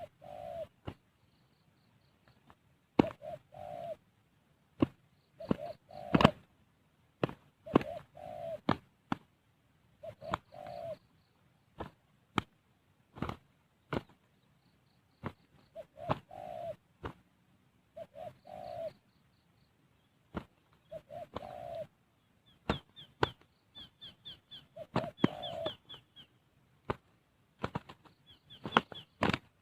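Spotted dove cooing in short, repeated phrases every second or two, mixed with sharp flapping and knocking sounds from scuffling birds, the loudest about six seconds in. A fast, high chirping twitter from a small bird comes in a little past the middle.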